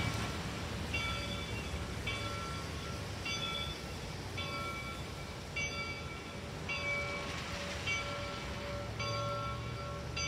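Railroad grade-crossing bell ringing in a steady repeating pattern, starting about a second in, over the low rumble of steam locomotive RBMN 425 approaching.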